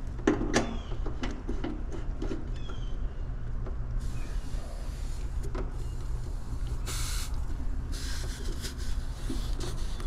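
Air-conditioner condenser running with a steady low hum while a fitting is worked onto its refrigerant service port: a few metal clicks, then refrigerant hissing from about four seconds in, strongest around seven seconds, at the port whose Schrader valve is suspected of leaking.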